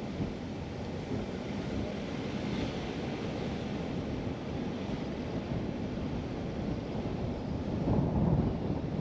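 Car driving slowly: a steady rumble of tyre and wind noise on the microphone, swelling briefly near the end.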